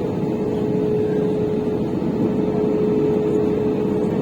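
Airbus A320-200 cabin noise in flight: a steady rush of air and engine noise with a constant hum tone running through it.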